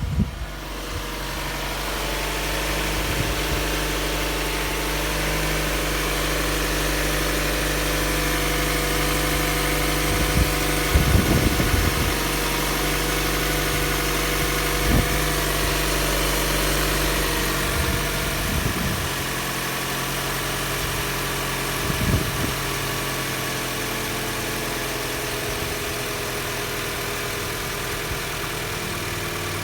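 Toyota Voxy 70-series engine idling with a steady abnormal noise running through it, which the owner puts down to a failing water pump. A few brief thumps stand out along the way.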